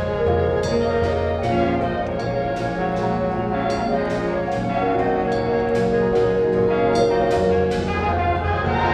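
A marching band's brass section plays sustained chords over a low held bass note. Struck percussion accents come roughly twice a second.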